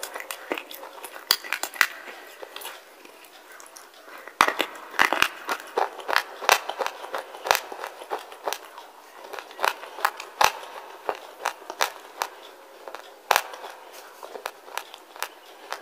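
Wet slate being bitten and chewed: irregular crisp crunches and crackles, with louder snaps every second or two.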